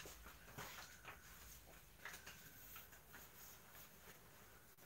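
Near silence: room tone with a few faint scattered ticks.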